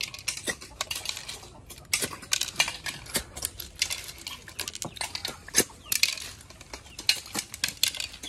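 Small snail shells clattering and clinking against steel plates in quick, irregular clicks as several people pick through them and suck out the meat.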